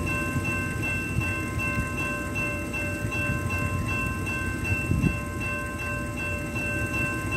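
Railroad grade-crossing warning bell ringing over and over in a steady electronic chime, with the crossing signals active. Under it runs a low rumble, and a single thump comes about five seconds in.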